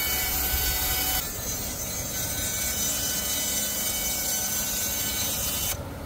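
Woodland Mills HM130MAX portable band sawmill running and sawing spruce/fir lumber: its engine and band blade make a steady machine noise. The sound steps down a little about a second in and again just before the end.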